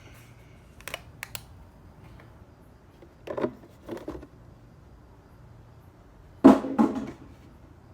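Plastic motor-oil bottles being handled during a refill: three light clicks about a second in, then two knocks, and a louder pair of knocks near the end.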